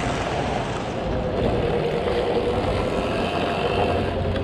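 Husqvarna EE5 electric motocross bike being ridden: the electric motor's whine wavers up and down with the throttle and drops near the end, over a low rumble.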